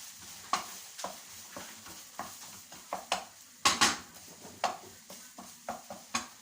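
A kitchen utensil knocking and scraping against a bowl or pot as food is stirred and tossed, in irregular sharp clinks, with one louder clatter near the middle.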